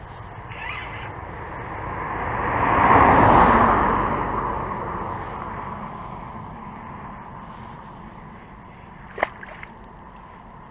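A car driving past, its tyre noise building to its loudest about three seconds in and then fading away. A single sharp click near the end.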